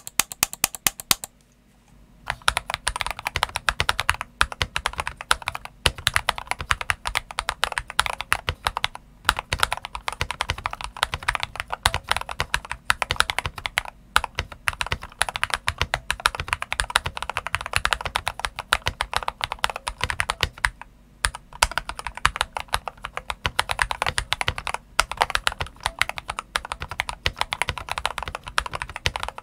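Fast typing on a modded Eyooso K-620 tenkeyless mechanical keyboard with Akko CS Rose Red linear switches and YMDK Carbon PBT keycaps. The case is dampened with hot-glued pennies, velvet and two layers of Tempest mod, and the stabilizers have the plumber's mod. A short flurry of keystrokes is followed by a brief pause, then near-continuous typing with a few short breaks.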